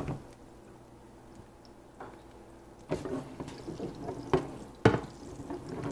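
Hot oil with a melting pat of fat sizzling lightly in a nonstick frying pan, starting about two seconds in, while a metal spoon scrapes and knocks against the pan, with two sharp knocks near the end, the second the loudest.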